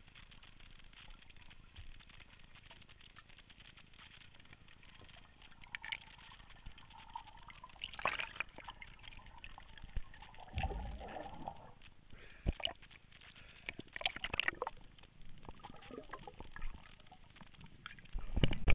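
Underwater water noise heard through a diving camera's housing, with scattered clicks and knocks, a gurgling burst about ten seconds in, and a sudden loud splash right at the end as the camera breaks the surface.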